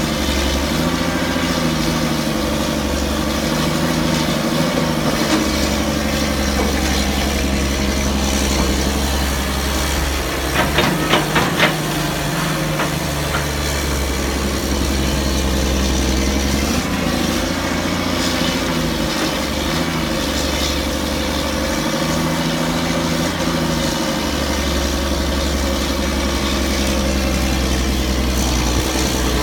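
CAT excavator's diesel engine running steadily while the machine digs, its note dipping and rising as the repaired hydraulics take load and let go. A short run of knocks comes about eleven seconds in.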